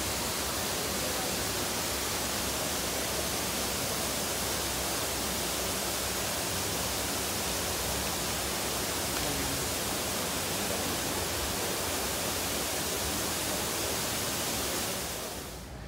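Steady, even rushing noise with no distinct events, cutting off suddenly shortly before the end.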